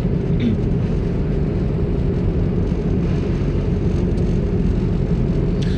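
Steady road and engine noise of a moving car heard from inside the cabin, a constant low rumble with no change in speed.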